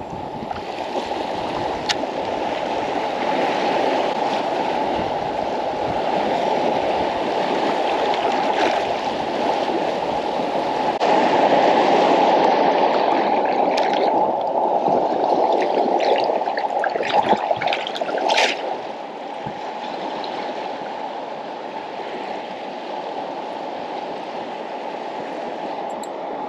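Water sloshing and gurgling steadily, swelling about halfway through and easing off later, with a few sharp clicks past the middle.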